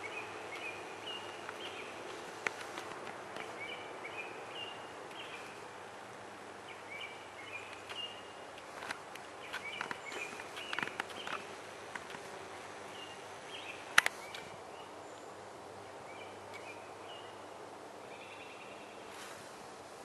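Small songbirds chirping, short phrases of high notes repeating again and again, over a steady outdoor hiss. Rustling and clicks in dry leaf litter come about halfway, with one sharp snap about 14 seconds in.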